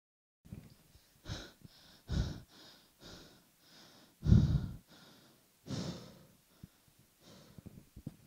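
A teenage boy breathing hard and gasping after jolting awake: a run of quick, heavy breaths in and out, the loudest gasp about halfway through.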